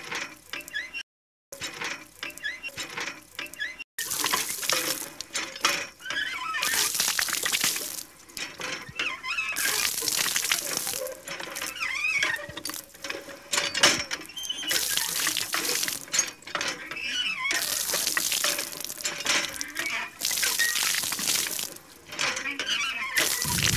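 A stream of water pouring and splashing from the spout of a miniature homemade hand pump into a puddle, surging with each stroke of the lever. It is preceded by a few faint clicks of the pump's plastic lever, and the pouring comes in about four seconds in.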